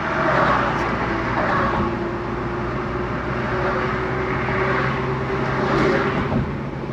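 A car driving at steady speed, heard from inside the cabin: a continuous low engine and road hum with tyre noise.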